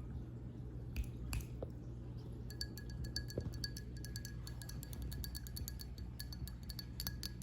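Rapid light metallic clinking with a faint ringing tone, starting about two and a half seconds in and running on as a fast jingle. A low steady hum sits underneath.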